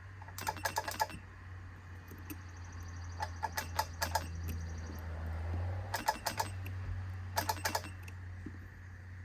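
Battery spot welder tacking nickel strip onto lithium-ion cells: four quick runs of sharp snaps, four to six welds each, over a steady low hum.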